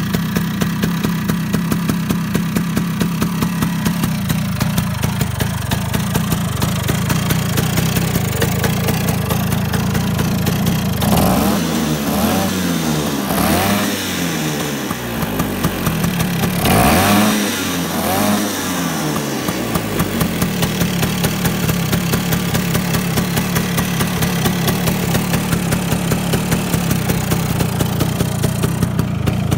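Vespa P200E 200 cc two-stroke single-cylinder scooter engine idling steadily, with the throttle blipped twice near the middle so the engine note rises and falls each time before settling back to idle.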